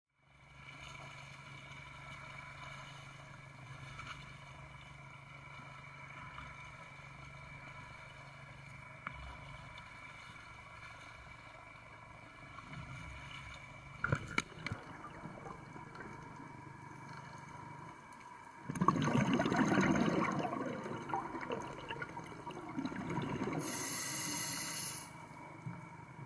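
Steady motor hum with water sloshing and splashing, a few knocks partway through, then a loud rush of churning water for a couple of seconds about three-quarters of the way in.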